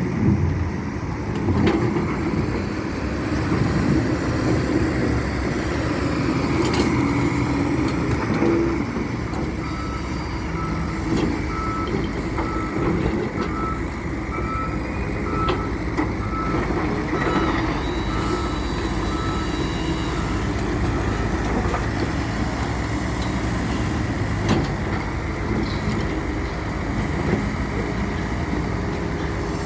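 Heavy diesel engine of a wheel loader running steadily under load, with a backup alarm beeping at a steady rate for about ten seconds in the middle and a few sharp knocks.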